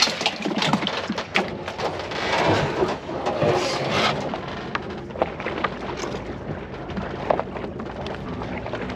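A bucket of yellow perch and water being emptied into a cooler: a splashing wash with many quick knocks and clatters, which settles into a quieter steady noise about halfway through.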